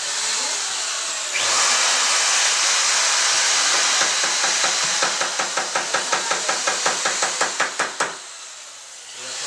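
A hand tool working wood. About a second in, a loud scratchy rasping starts and settles into fast, even back-and-forth strokes, about four or five a second, then stops abruptly near the end.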